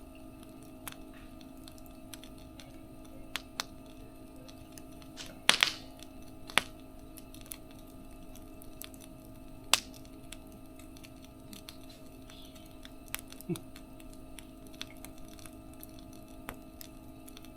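Wood fire crackling: irregular sharp pops, the loudest a quick cluster about five and a half seconds in, over a steady low hum.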